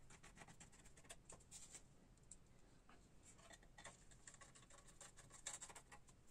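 Faint clicking and scraping as a graphics card's cooler shroud is handled into place and its small screws are driven in with a hand screwdriver. The clicks come in two clusters, about a second in and again near the end.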